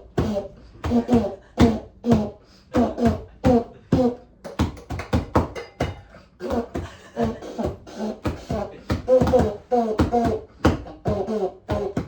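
Vocal beatboxing: a steady beat of mouth-made drum sounds, about two strokes a second, mixed with short voiced sounds.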